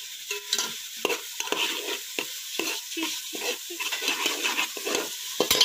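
Chopped onions sizzling in hot oil in a large metal pot while a steel spoon stirs and scrapes through them in irregular strokes, with a sharp knock against the pot near the end. The onions have just gone into the hot oil and are being fried only until translucent.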